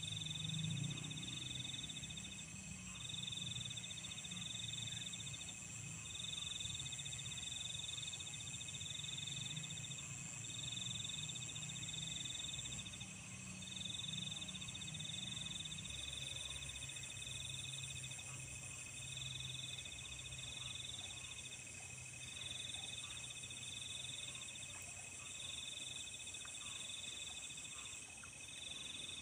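Night chorus of insects and frogs: a buzzing high trill repeating about every three seconds over steady high-pitched chirring, with a low hum underneath.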